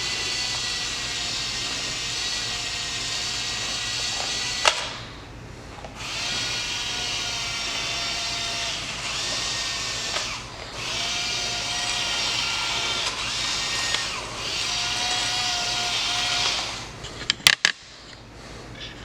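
Small DC gear motors of a hobby robot kit whirring in three runs of several seconds each with short pauses between, then a few sharp clicks near the end.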